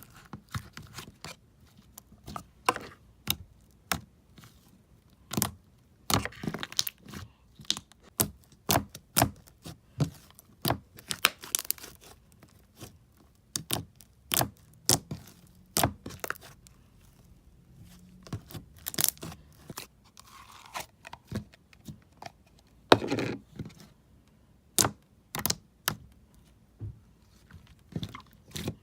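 Slime being squeezed and poked by hand, making irregular sharp clicks and pops, with a longer crackling stretch about 23 seconds in.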